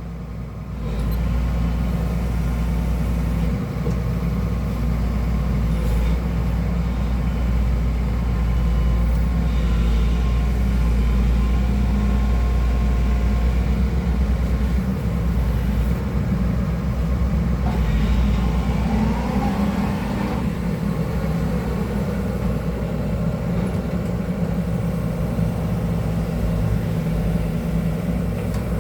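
Excavator's diesel engine running steadily as the machine digs, with faint shifting tones over the low drone.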